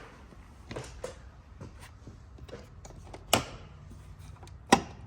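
Scattered light clicks and knocks from hands working on a Toyota 4Runner's plastic engine air filter housing, with two sharp snaps, one about three seconds in and one near the end, as its latch clips are undone.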